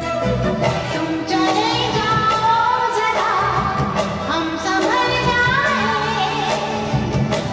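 Bollywood film song performed live: a band accompaniment with a sliding, ornamented melodic line over it, sung or played.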